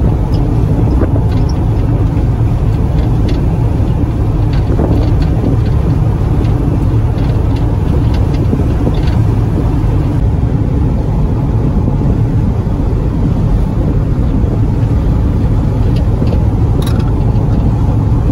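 Car driving along a road, heard inside the cabin: a loud, steady low rumble of engine, tyre and wind noise, with a few faint rattles.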